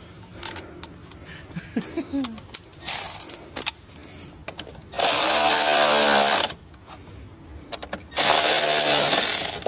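A cordless power tool runs in two bursts of about a second and a half each, tightening the nuts on new battery terminal clamps. A few light clicks of handling come before them.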